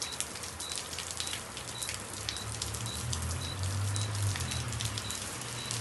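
Heavy rain falling, with dense hiss and many sharp drop impacts on a nearby surface. A short high beep repeats about twice a second, and a low rumble swells up in the middle.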